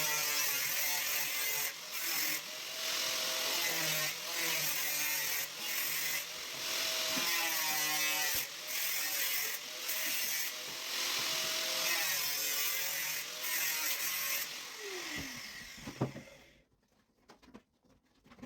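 A power tool runs loudly with a wavering pitch and brief drops in speed, as if the trigger is being eased and squeezed. About fifteen seconds in it spins down and stops.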